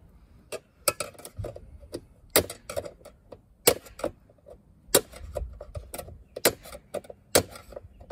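Screwdriver tapping a lock nut around to tighten a liquid-tight conduit connector into the bottom of a heat pump disconnect box: a string of sharp taps, unevenly spaced, about one or two a second.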